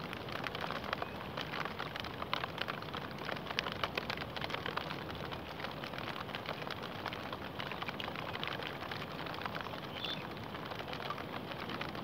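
Steady rain falling on water and reeds: a continuous hiss made of many separate drop hits.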